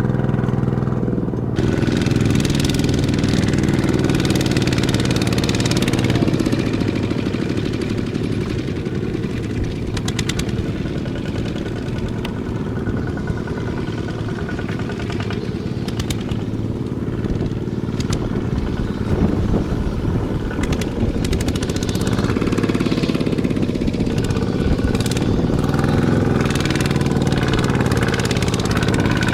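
Walking tractor's engine running steadily. About a second and a half in, the sound changes abruptly from a smoother drone to a rougher, noisier running.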